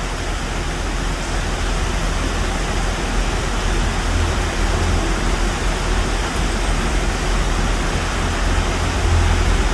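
Heavy rain falling in a steady, dense hiss, with low rumbles swelling about four seconds in and again near the end.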